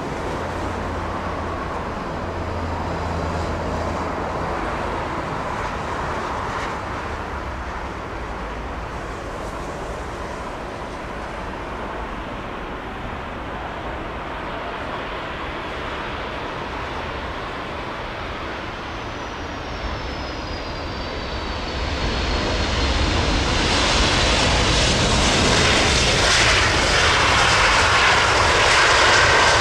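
Boeing 767 airliner's Rolls-Royce RB211 jet engines running steadily on final approach, then landing and rolling out close by. About 22 seconds in the sound grows clearly louder, with a high whine falling in pitch.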